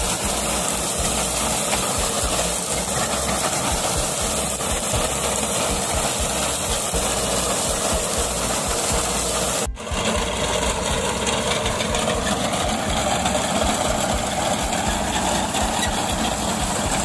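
Tractor engine running with its rear-mounted reaper cutting through standing wheat, a steady mechanical noise with a momentary break about ten seconds in.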